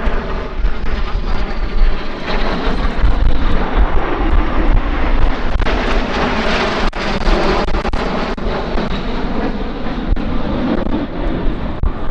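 Aero L-39 Albatros jets flying past. A loud, steady jet roar swells to its peak around the middle and then eases, with a thin high whine falling in pitch in the first couple of seconds.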